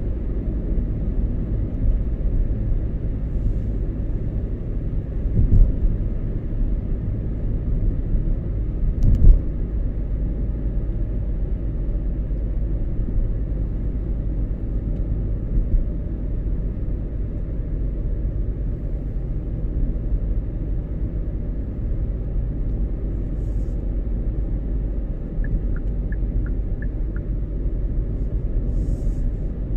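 Car driving along: a steady low rumble of engine and road noise, with two louder bumps about five and a half and nine seconds in.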